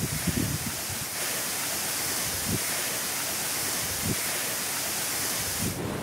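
Waterfall rushing as a steady hiss of falling water. Wind buffets the microphone in a few short low thumps, several near the start and a few more spread through.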